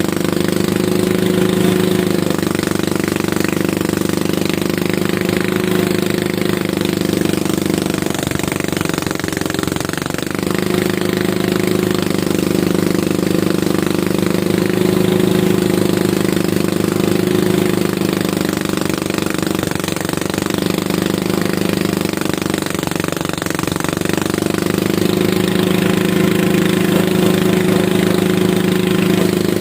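Engine of a rice harvesting machine running steadily under load with a fast mechanical rattle, its pitch dipping briefly a few times as the load changes.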